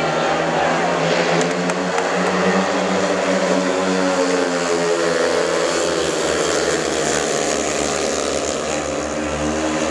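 Four speedway bikes' 500 cc single-cylinder methanol engines racing together at full throttle. Their pitch rises and falls as the riders slide through the bend and accelerate down the straight.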